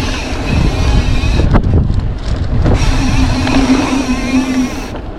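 Strong wind buffeting the microphone in a loud low rumble, with a steady hum running under it that breaks off abruptly about one and a half seconds in and again near the end.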